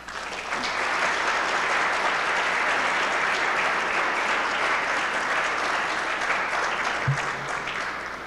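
Audience applauding, building up within the first second and dying away near the end. A single brief low thump about seven seconds in.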